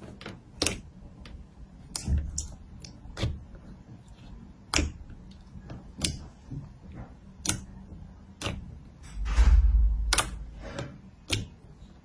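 Slime being handled, giving sharp clicks and pops about once a second, with one longer, louder stretch about nine seconds in.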